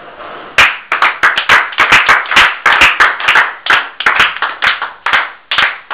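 Hands clapping in a quick, even rhythm, about four claps a second, starting about half a second in.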